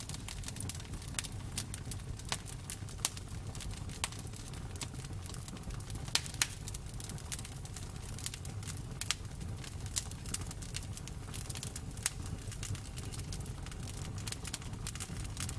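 Campfire crackling: frequent irregular pops and snaps over a low steady rumble, with a couple of sharper pops about six seconds in.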